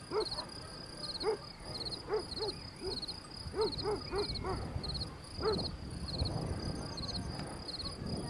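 A dog barking repeatedly in short, spaced barks, with a quick run of several barks about halfway through.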